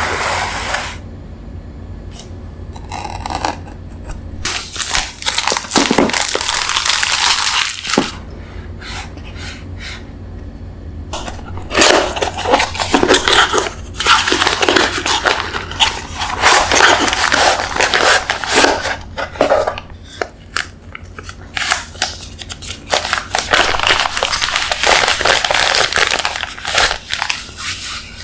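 Product packaging being opened by hand: stretches of crinkling and tearing of plastic and paper with scattered clicks and knocks, over a steady low hum.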